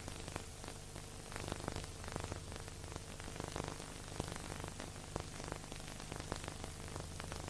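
Steady hiss with scattered crackles and clicks over a low, steady hum: the surface noise of an old silent-film transfer, with no music.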